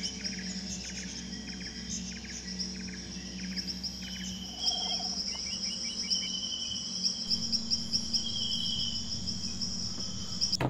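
Insects trilling in a steady high chorus, with short repeated bird chirps over the first few seconds and a low steady hum underneath.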